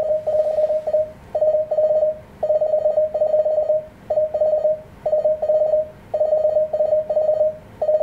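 Morse code (CW) tone keyed at a steady pitch, sending runs of short dits in letter and word groups with brief gaps between them. The sending is mostly all-dit characters, a copy-practice exercise.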